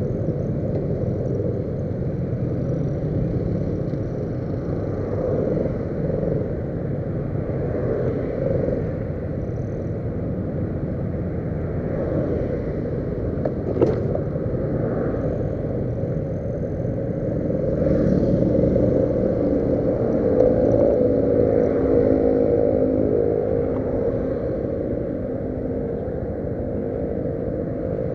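Small motorcycle riding along, its engine running under a steady rumble of road and wind noise. One sharp click about halfway through, and the engine note rises and grows louder for a few seconds about two-thirds of the way in.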